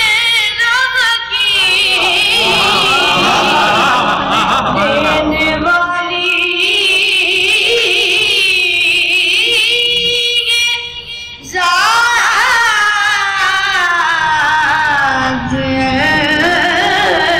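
A boy's high voice reciting a naat, sung solo with long, wavering, ornamented held notes. It breaks off briefly about ten seconds in, then resumes.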